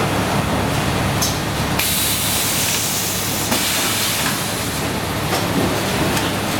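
Semi-automatic toilet paper roll packing machine running with a steady low mechanical hum. About two seconds in, a loud hiss starts and lasts about a second and a half, with a few short clicks along the way.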